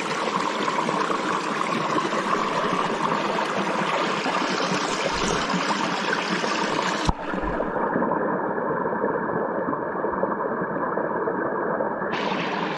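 Steady rush of a small creek waterfall. About seven seconds in there is a sharp knock, and the water goes muffled and dull for about five seconds before it opens up again.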